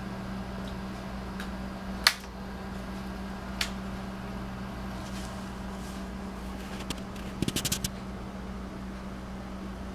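Steady low mechanical hum, with a few sharp taps and clicks from two kittens scuffling: a loud tap about two seconds in, a softer one at three and a half seconds, and a quick run of about six clicks about seven and a half seconds in.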